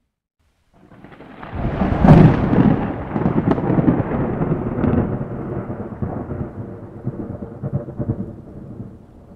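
Thunder: out of near silence a clap starts about a second in, cracks loudest about two seconds in, then rolls on as a long rumble that slowly fades.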